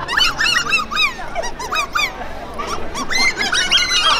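Rapid runs of high-pitched, squeaky, goose-like honks, several a second, broken by short pauses: comic noises from the crawling street clowns.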